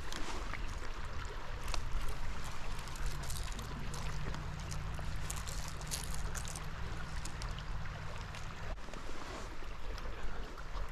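Creek water running steadily over riffles, with a few faint clicks. A low steady hum sounds from about three seconds in until about nine seconds in.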